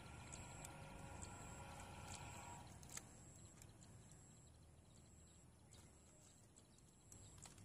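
Near silence with faint, scattered clicks and small knocks from a Photron Stand-y 500 plastic camera tripod being handled, its head and leg parts worked by hand; the sharpest click comes about three seconds in.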